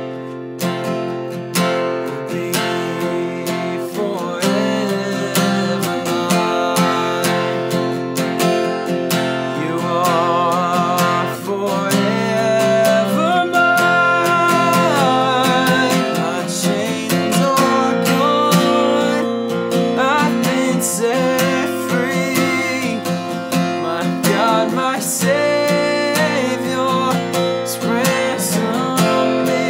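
A man singing a worship song solo to a strummed acoustic guitar.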